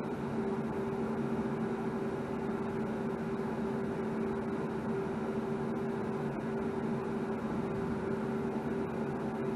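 Steady machine hum: two low, steady tones over an even hiss.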